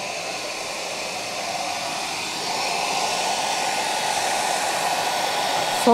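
Hair dryer running steadily on its lowest setting, a continuous blowing whoosh that grows a little louder about two and a half seconds in.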